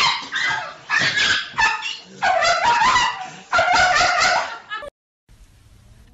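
Dog yipping and whining, a string of loud cries that breaks off about five seconds in.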